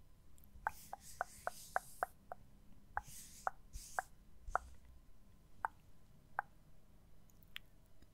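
Faint close-up hand sounds: soft rustling of a hand moving over the microphone, with a string of small sharp clicks or taps. The clicks come about four a second at first, then more sparsely.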